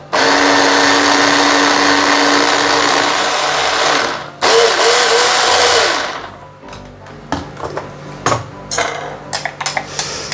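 Electric hand blender with a mini chopper bowl running in two pulses, the first about four seconds and the second about a second and a half, chopping chilies with oil into a coarse paste. The motor is followed by several light clicks and knocks as the motor unit is lifted off and the plastic bowl is handled.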